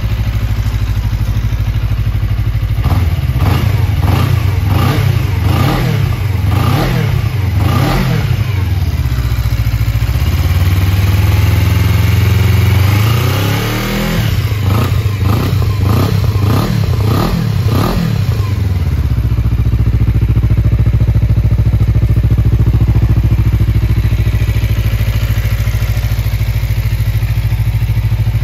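Suzuki GSR250's 248 cc parallel-twin engine running through a WR'S slip-on muffler. It idles, is blipped up and down in a quick series of revs about three seconds in, is held at raised revs for a few seconds, is blipped again several times, and settles back to a steady idle about nineteen seconds in.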